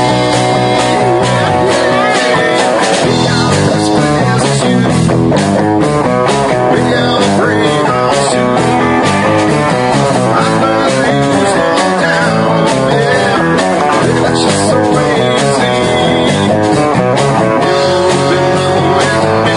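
Live rock band playing loudly: electric guitars over bass, keyboard and a drum kit keeping a steady beat.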